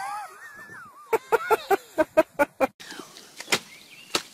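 A person's high voice calling out with gliding pitch, then laughing in a quick run of short bursts. A few scattered clicks and knocks follow.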